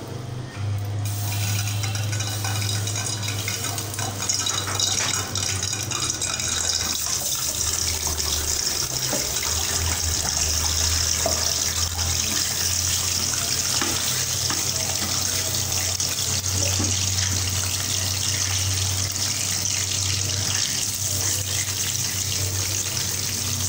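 Raw chicken pieces sizzling in hot oil in a karahi as they are dropped in: a steady frying hiss that starts about a second in, with a few light knocks from the pieces going into the pan and a low hum underneath.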